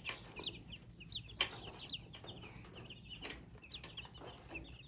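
Chickens clucking softly with many short, high bird chirps scattered throughout, and a few light knocks.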